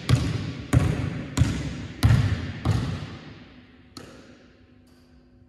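A basketball dribbled on a wooden gym floor. Five bounces come about two-thirds of a second apart, each echoing through the large hall, then a softer bounce about four seconds in.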